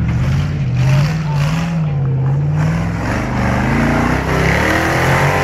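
Off-road trial buggy's engine revving hard under load as it climbs a steep dirt slope. The engine pitch wavers up and down, then rises steadily over the last couple of seconds.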